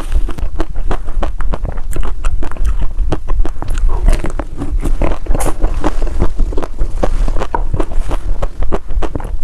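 Crispy dry ice cream being bitten and chewed: dense, irregular crunching clicks, several a second, without a break.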